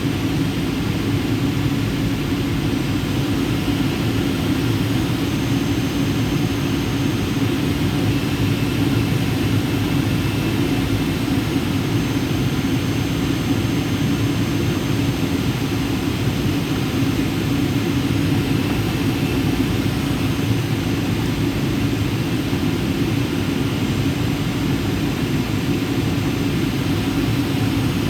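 Steady cabin noise inside a Boeing 737 airliner: the even drone of the jet engines and airflow, with a constant low hum.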